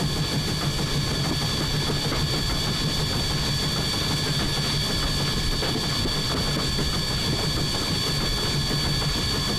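1910 Swedish-built E2 steam locomotive running along the line, heard from its cab: a steady mix of locomotive and rail rumble with several steady high-pitched whistling tones over it.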